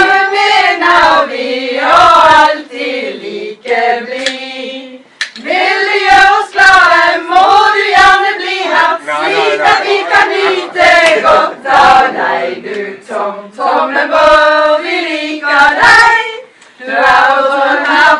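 A group of women singing a song together without instruments, with hand claps mixed in.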